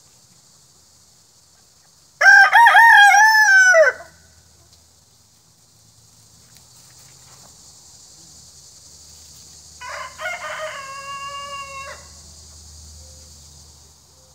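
Roosters crowing: a loud, near crow about two seconds in, lasting nearly two seconds, then a quieter, steadier-pitched crow about ten seconds in.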